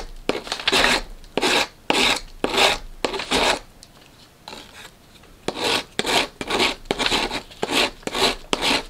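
Stanley Surform Shaver rasping across dried paper mache clay in a run of quick scraping strokes, about two to three a second, shaving bumps off the surface, with a short pause about halfway through.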